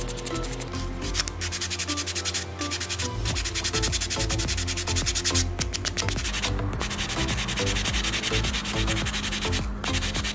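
Abrasive sanding sponge rubbed by hand over a small painted model-car part: rapid back-and-forth scratchy strokes, broken by a few brief pauses.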